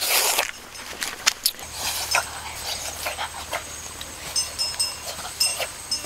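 Leaves and twigs rustling and snapping as a person pushes through brush on foot, opening with a short loud hiss-like burst. From about four seconds in, short high chirps repeat in the background.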